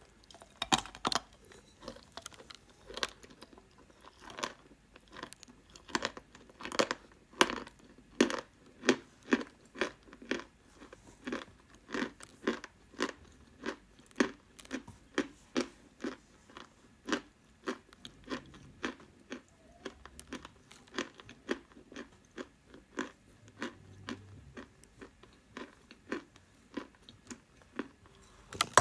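A dry lump of chalk being chewed: a steady run of crisp crunches, about two a second.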